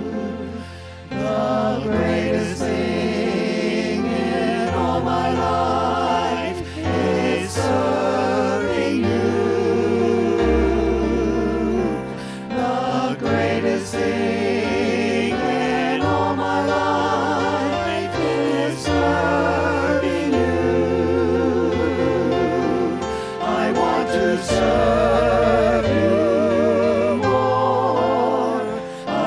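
Small worship team of several voices singing a praise song together, with electric keyboard accompaniment.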